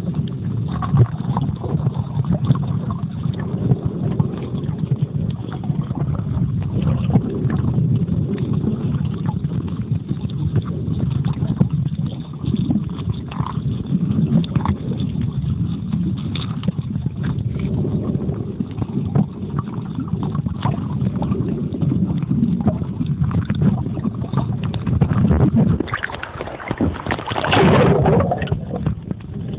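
Muffled underwater noise picked up by a phone's microphone sealed in a waterproof pouch: a steady low rumble of water with many small clicks and crackles. Near the end comes a louder rush of water as the phone comes up near the surface.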